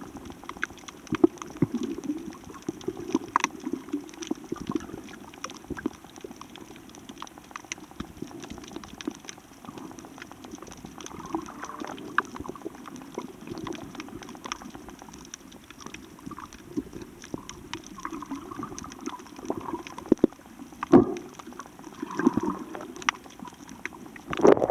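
Water gurgling and sloshing, with many small sharp clicks and crackles scattered through it and a few louder knocks near the end.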